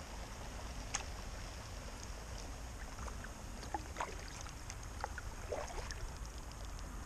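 A kayak being paddled on calm water: small splashes and drips from the paddle blades, with scattered light clicks and knocks, over a steady low rumble.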